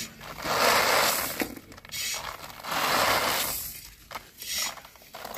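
A metal scoop rakes through steamed (parboiled) paddy in an iron wok, and the grains are emptied out in repeated rattling swishes, three long ones about a second apart plus a short one, each lasting about a second.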